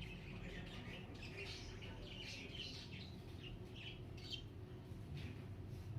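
Pet parrots chirping softly, a steady scatter of short, high chirps one after another.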